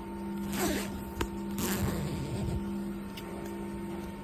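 Zipper of a fabric clothes-dryer bag being pulled shut in two quick strokes, with a short click about a second in, over a steady low hum.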